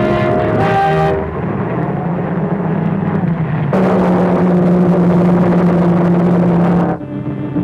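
Cartoon sound effect of the villains' bullet-shaped rocket car in motion: a rushing mechanical noise that swells about halfway in into a loud, steady, low drone with hiss and cuts off sharply near the end. A brass orchestral phrase is ending in the first second.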